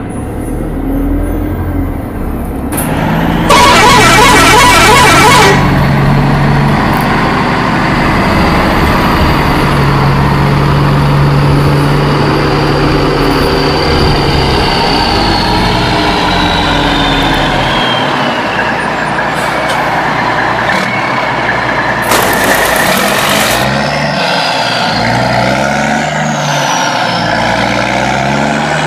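Truck engine and horn sound effects: an engine running with horn toots, and two bursts of hiss lasting a couple of seconds each, one a few seconds in and another about three-quarters of the way through.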